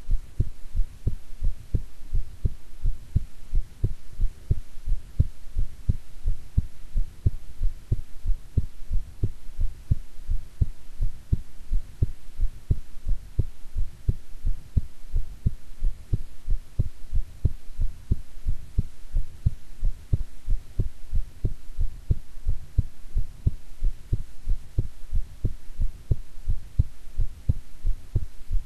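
A woman's heartbeat, picked up close to the chest, beating in a regular rhythm of low thumps, with a steady low hum underneath.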